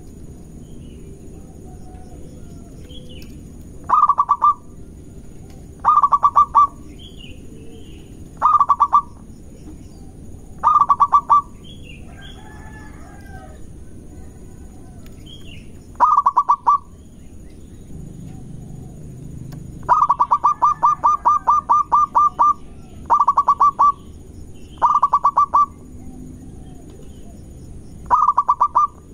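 Zebra dove (perkutut) cooing in short bursts of rapid, stuttering notes, about nine phrases, with one longer run about two-thirds of the way through. Faint chirps of other birds are heard between the phrases.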